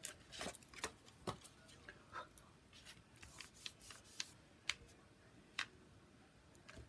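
Scattered light clicks and rustles of paper craft pieces and small tools being handled, a dozen or so at irregular moments, busier in the first half.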